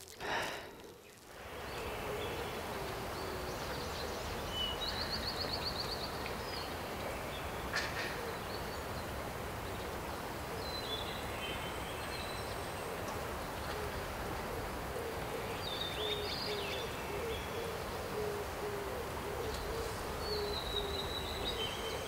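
Outdoor nature ambience: birds calling now and then with short high chirps over a steady hiss, and a low hooting call repeated in short notes, mostly in the second half.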